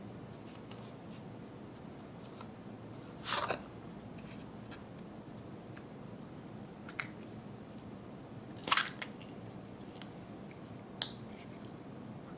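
Chocolate egg shell snapping apart in the hands and a plastic toy capsule being popped open: four short, crisp cracks and clicks, the loudest about two-thirds of the way through.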